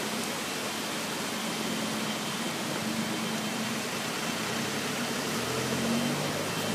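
Steady city-street noise with a low hum, and an engine hum swelling a little about five seconds in as a vehicle goes by.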